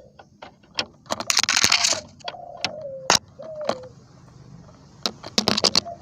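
Greater green leafbird (cucak ijo) calling: a run of sharp clicking notes, a harsh rasping burst about a second in, and several short, low whistled tones that fall slightly in pitch.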